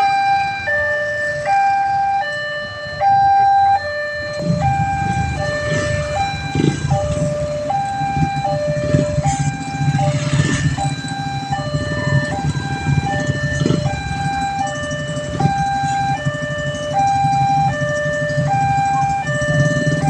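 Railway level-crossing warning siren sounding a two-tone alarm that alternates steadily between a higher and a lower note, each held about half a second. A low rumble joins in about four seconds in.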